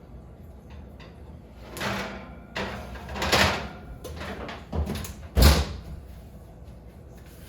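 Kitchen door or cupboard being handled: a few short knocks and scrapes, ending in a loud thud of a door shutting about five and a half seconds in.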